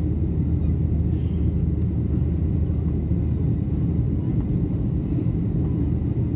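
Steady low rumble of a Boeing 737 airliner's jet engines and rushing air, heard from inside the cabin during the climb after takeoff.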